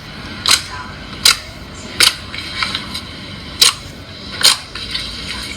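Slime being squeezed and worked by hand, giving sharp popping clicks as trapped air bursts, about five of them less than a second apart, with softer crackling between.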